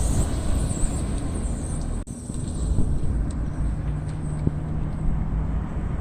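Car wheel making a strange noise while driving: a steady low rumble, with a brief break about two seconds in and a steady low hum joining it in the second half.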